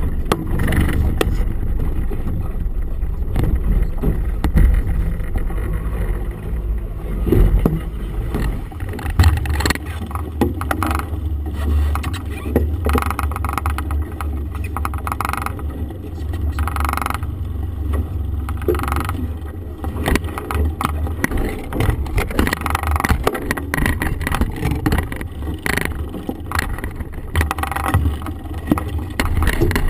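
Small boat's outboard motor running under way, a steady low drone that shifts about nine seconds in, with irregular gusts and splashes over it.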